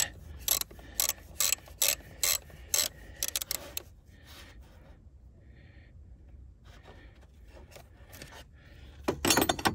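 Socket ratchet wrench clicking in short strokes as the nut on a car battery's positive terminal clamp is loosened, with a pause of quieter rubbing in the middle and a louder flurry of clicks and scraping near the end.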